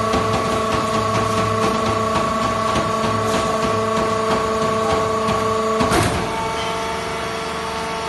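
Hydraulic power unit of a vertical textile fiber baler running with a steady whine made of several tones, over a light rapid ticking. About six seconds in there is a sharp clack, after which the whine changes and drops a little.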